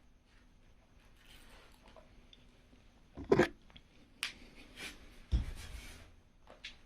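A few scattered knocks and clicks of things being handled. The loudest is a sharp knock about three seconds in, followed by a deeper thump a couple of seconds later.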